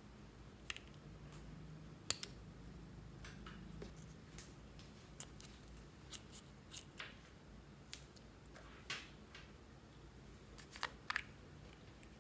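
Faint scattered clicks and short scrapes of small plastic makeup containers being handled: a plastic spatula scraping cream from a compact and a small plastic jar being opened. The loudest are a pair of sharp clicks near the end.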